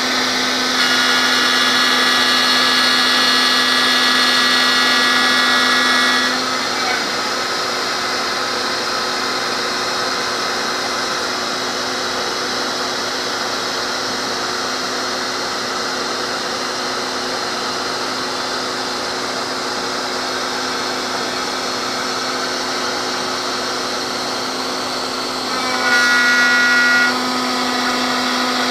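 CNC router spindle running steadily with its dust-shoe vacuum while the end mill cuts a 3/16-inch aluminium plate. A higher whine rides over the hum for the first six seconds, stops, then returns louder for about a second near the end.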